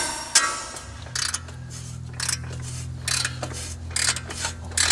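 A gloved hand strikes the soft end of a ratchet handle fitted on a rusted 17 mm caliper bracket bolt, giving a series of sharp metallic knocks about one or two a second. The blows are hammering the stuck bolt to break it loose. A low background music bed comes in about a second in.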